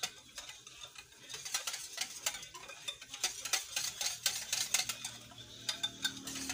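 Hand-stirring a thick chocolate batter in a glass bowl, the utensil making repeated light clicks and scrapes against the glass. A low steady hum comes in about four seconds in.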